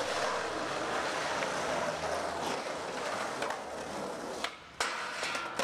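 Skateboard wheels rolling steadily over rough pavement. Near the end come a couple of sharp clacks from the board striking.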